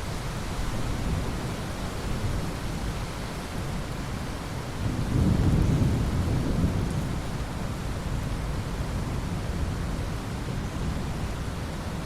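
Steady rain with a roll of thunder: a low rumble swells about five seconds in, peaks over the next two seconds, then fades back under the rain.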